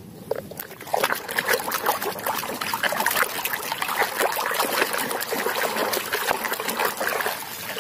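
Muddy water sloshing and splashing in a plastic basin as a hand scrubs a plastic toy car under the surface, with drips and wet rubbing; quiet for the first second, then steady busy splashing.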